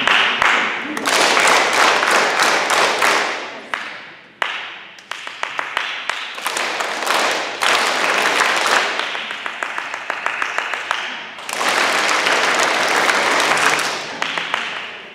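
A group of children clapping. The clapping comes in waves: it starts suddenly, swells into a dense patter like applause, then thins out to single claps and dies away, about four times over.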